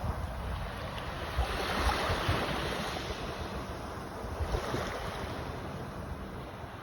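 Waves breaking and washing in surges, with wind buffeting the microphone.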